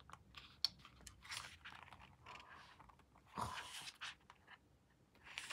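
Pages of a paperback photobook being turned by hand: faint paper rustling and rubbing with small clicks, and one louder page swish a little past halfway.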